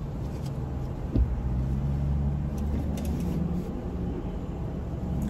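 Car engine running at low speed as the car creeps forward, heard from inside the cabin as a steady low hum. A single thump about a second in.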